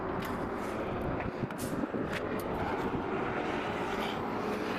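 Steady engine rumble of a vehicle, with a few short light clicks about a quarter second, a second and a half, and two seconds in.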